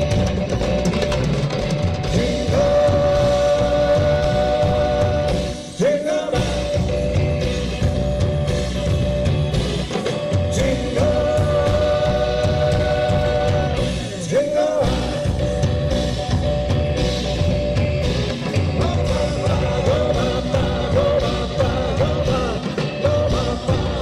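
Latin rock band playing live, with drum kit and percussion under long held lead notes that end in a short swoop in pitch twice, as the low end briefly drops out.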